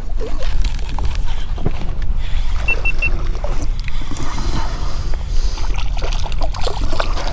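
Wind buffeting the microphone in a steady low rumble, with small knocks and splashes from the kayak and water as a fish is reeled in. About three seconds in come three quick high beeps.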